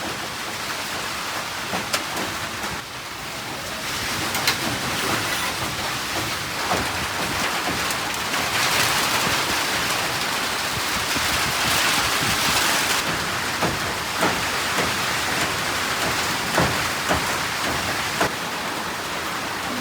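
Heavy rain falling steadily, with a few sharp taps of drops or splashes scattered through it.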